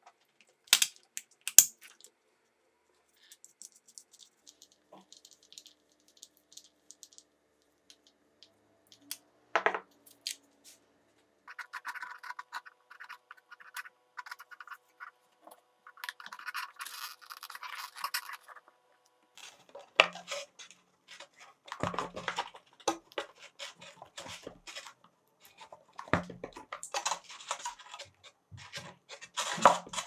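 Small parts and tools being handled on a workbench: a few sharp clicks and taps, then, about a third of the way in, several seconds of steady buzzing with scratching from a small motor, followed by irregular scraping and clicking.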